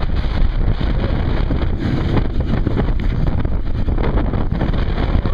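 Steady wind buffeting the microphone, with water rush, while riding a towed banana boat.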